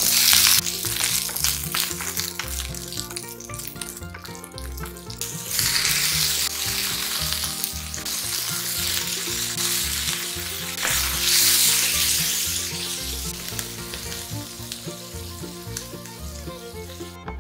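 Bell pepper pieces sizzling in hot oil in a frying pan, starting with a loud hiss as they go in and frying on while being stirred. The sizzle flares louder twice more, about five and eleven seconds in, then tapers toward the end.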